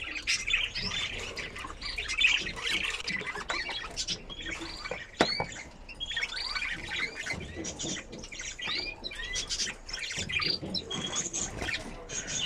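Many budgerigars chattering at once, a dense run of short rising-and-falling chirps and squawks that goes on without a break.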